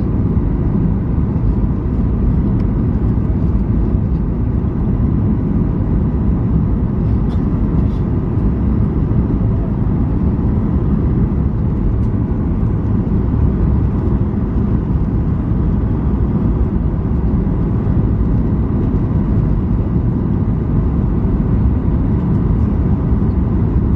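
Steady cabin noise inside a Boeing 737 MAX 8 on approach: a loud, even low rumble of airflow and its CFM LEAP-1B engines, heard from a window seat over the wing.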